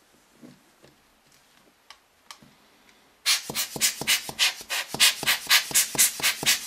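Hand-squeezed rubber air blower bulb puffing air into an open camera lens mount: a rapid run of hissing puffs, about four or five a second, starting about three seconds in. Before that, faint rubbing and light clicks of a cloth wiped around the metal mount ring.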